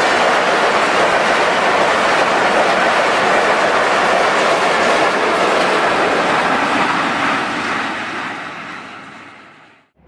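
Pakistan Railways passenger coaches passing at speed close by: a steady loud rush of wheels on the rails. It fades away over the last three seconds as the train goes by and cuts off at the end.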